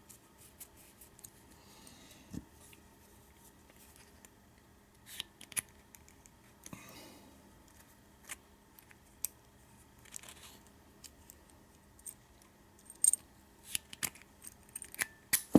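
Scattered small metallic clicks and ticks, with a few short scrapes, from handling a freshly repinned Schlage deadbolt cylinder and its small parts; the clicks come thicker near the end.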